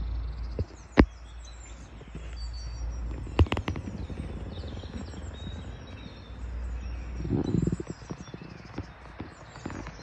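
Outdoor ambience under bare trees: faint short bird chirps over a steady low rumble, with a few sharp knocks, one about a second in and a quick cluster a little after three seconds in.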